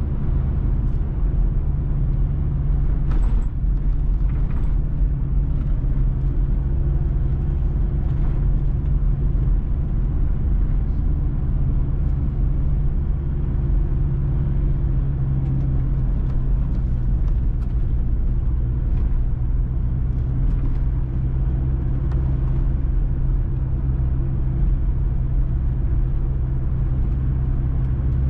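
Car engine running steadily with road and tyre rumble, heard from inside the cabin while driving at a low, even speed. A few faint brief ticks come through about three to five seconds in.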